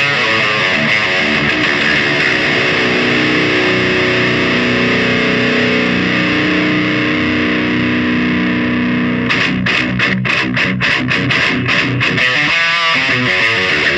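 Heavily distorted electric guitar played through a Solar CHUG distortion pedal. A held chord rings out for several seconds, then about nine seconds in it switches to a string of short, choppy stopped chords: chugging.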